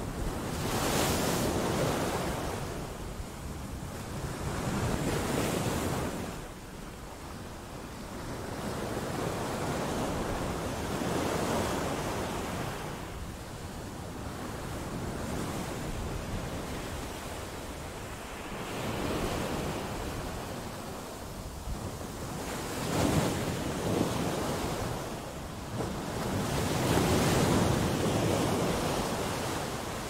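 Sea waves breaking against shoreline rocks, a wash of surf that swells and ebbs every four to six seconds, with a couple of sharper splashes a little past two-thirds of the way through.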